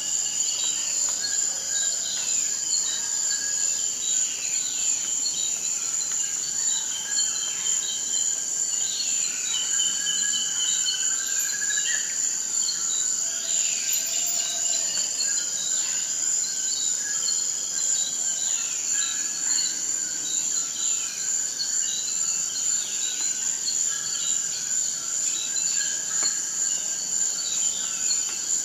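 Forest ambience: insects keep up a steady, high-pitched drone, with many short sliding chirps from calling animals scattered over it.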